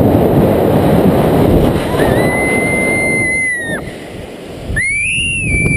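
Wind rushing over the microphone during a bungee jump's freefall, with a woman's two long, high screams: the first starts about two seconds in, the second near the end, beginning higher and settling.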